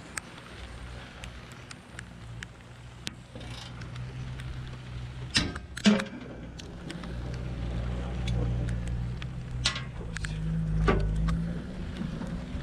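Hand tools clicking and knocking on a rusted muffler bolt on an M936A2 military truck's exhaust, with sharp metallic knocks about six seconds in and again near the end, as the bolt snaps off. A low rumble runs under the second half.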